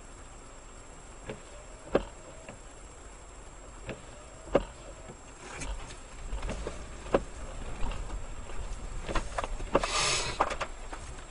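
Car windscreen wipers on a rain-wet windscreen, thumping in pairs about every two and a half seconds with a faint motor whine between strokes. About halfway through the car moves off and tyre noise on the wet road rises, with a loud hiss of spray about ten seconds in.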